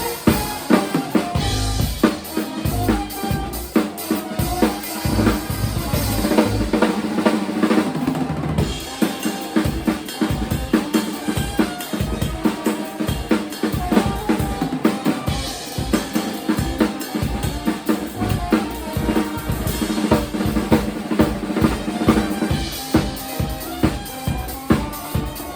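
Live band playing an instrumental passage, the drum kit to the fore with a steady stream of kick, snare and rim hits over held bass and other instrument notes.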